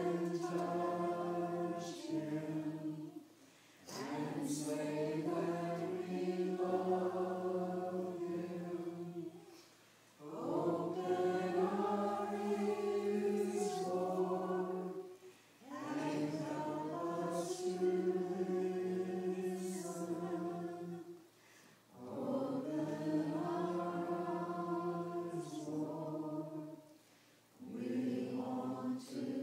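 Church choir singing a hymn in slow, held phrases, with a short break between phrases about every six seconds.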